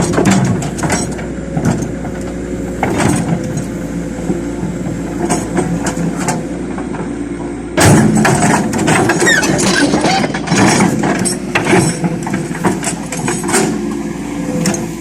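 Excavator engine running steadily, with repeated metallic clanks and knocks. It gets suddenly louder about eight seconds in, as if revved or put under load.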